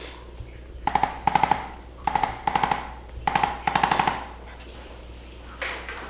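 Rapid mechanical clicking in six short bursts, grouped in three pairs over about three seconds, as a quick therapeutic stimulus is applied to the patient; a single click follows near the end.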